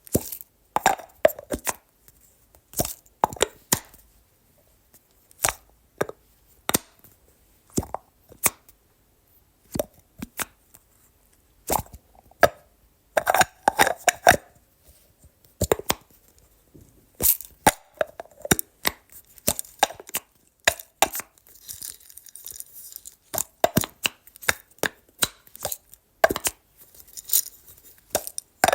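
Plastic spice container being handled: irregular sharp clicks and knocks, like a lid snapping open and shut and the container being set down and tapped. About two-thirds of the way through there is a brief hissy rattle.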